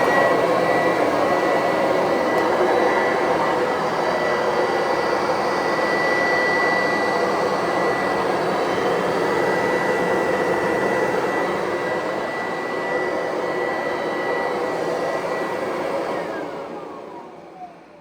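Kirby Avalir upright vacuum fitted with a ten-blade aluminium Sanitronic fan, running steadily with a high whine over its motor noise. About sixteen seconds in it is switched off and the whine falls in pitch as the motor winds down.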